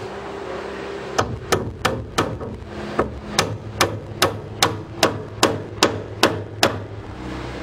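Hammer driving a nail into a wooden roof truss: about fourteen steady blows, roughly two and a half a second, beginning about a second in. A steady low hum runs underneath.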